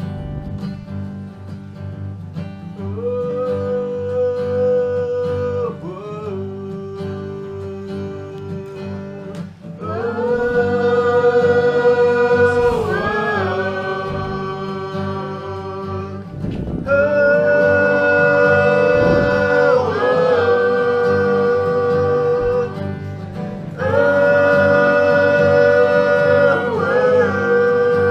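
A live acoustic string band, including a banjo, plays while voices sing long held notes that slide off at the end of each line. The singing grows louder and fuller from about ten seconds in.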